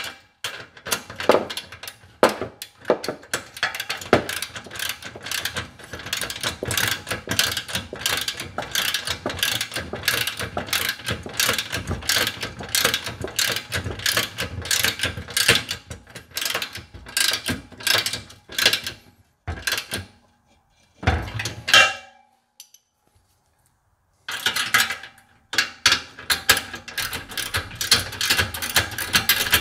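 Socket ratchet wrench clicking in quick runs as a nut on the ramp's bolted hinge bracket is turned, with a short break a little past two-thirds of the way through.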